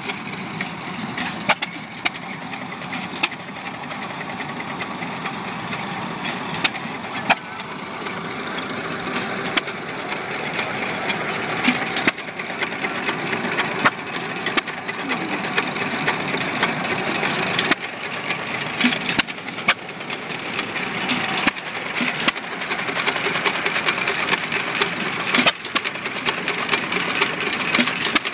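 Small antique hit-and-miss gasoline engine running, with a steady mechanical clatter and sharp knocks at irregular gaps of one to a few seconds.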